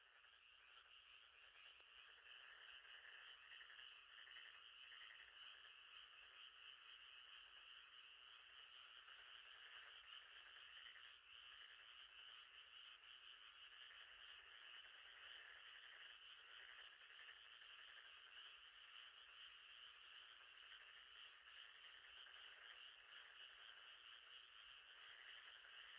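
Faint, steady night chorus of frogs, fading in at the start.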